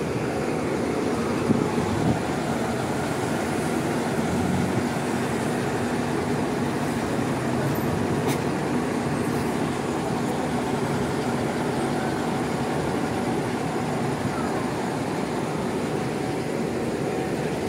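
Bus engine running steadily, with a faint sharp click about eight seconds in.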